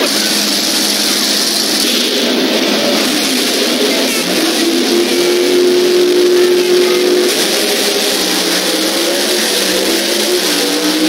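Drag race cars' engines running loud at the starting line, holding a steady pitch for a few seconds, then revving as the cars leave the line near the end.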